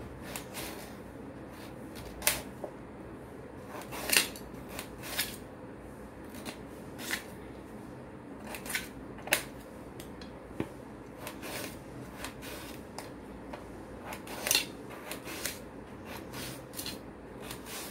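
Kitchen knife cutting a beetroot into small pieces over a steel plate, with irregular sharp clicks of the blade about one to three times a second.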